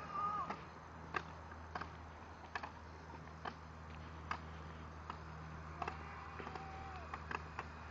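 Footsteps on a concrete sidewalk: light ticks at a walking pace, a little under one a second, over a low steady hum.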